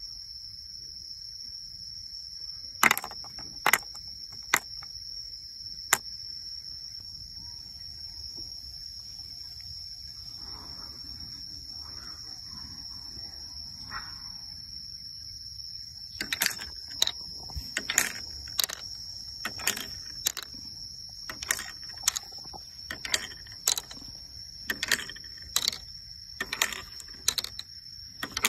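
Sharp, light clicks of carved bamboo pieces knocking together: a few about three seconds in, then many at irregular spacing, about one or two a second, through the second half. A steady high insect drone runs underneath.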